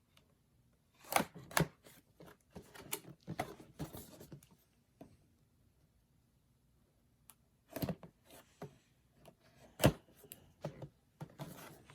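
A boxed toy's packaging being handled and opened: scattered clicks, rustles and knocks, with a near-quiet pause of a couple of seconds in the middle.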